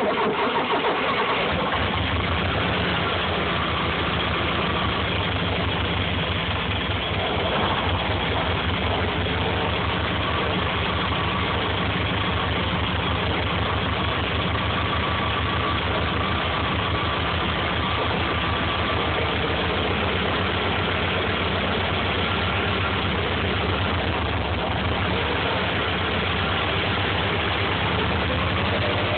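Subaru EJ22 2.2-litre flat-four engine idling steadily, with an even low pulse.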